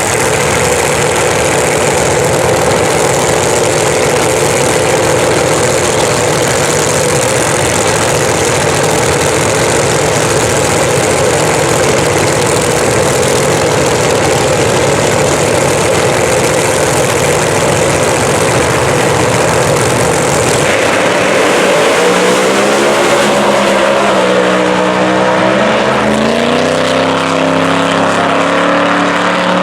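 Supercharged 3,500 hp Hemi drag-racing engine running loud and steady; about two-thirds of the way in its sound changes abruptly to a clear pitched note that rises and falls as the engine is revved.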